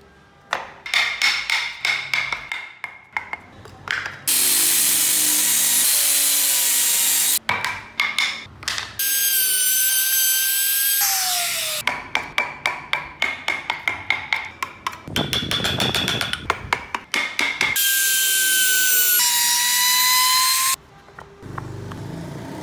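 Hand tools working wood in quick, even strokes, a chisel cutting among them, broken three times by a few seconds of a loud power tool running with a whine that shifts in pitch.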